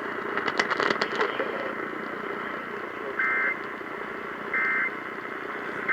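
Steady radio hiss, then three short two-tone data bursts about 1.3 seconds apart: the Emergency Alert System's digital end-of-message tones.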